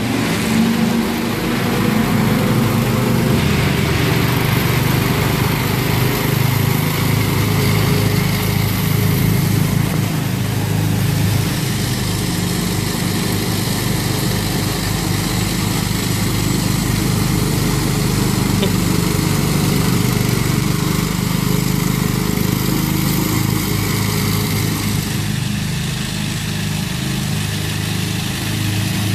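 Cub Cadet riding lawn mower's engine running steadily as the tractor drives across the lawn.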